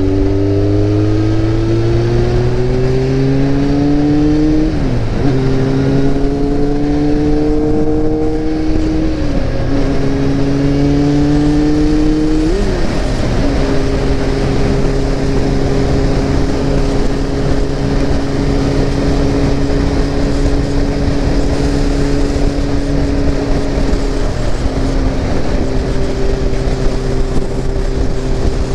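Motorcycle engine heard from the rider's seat, accelerating and upshifting three times, its pitch climbing and dropping back at each shift, then cruising at a steady speed with wind noise.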